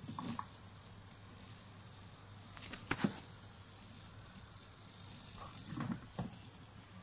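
Plastic toy climbing car knocking and clattering against rocks a few times, the sharpest knock about three seconds in, over a faint steady low hum. A couple more knocks near the end as the car is picked up by hand.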